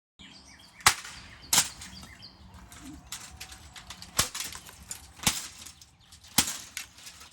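A series of sharp clicks and clacks at irregular intervals, five of them loud, with fainter clicking in between.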